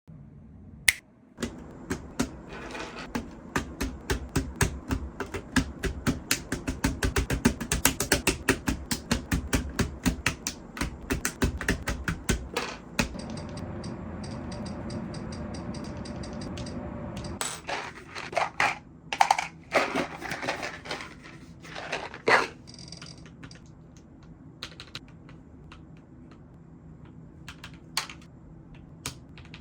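Custom mechanical keyboard being typed on: a fast, dense run of key clacks, then a few seconds of steady rushing noise, then scattered single keystrokes.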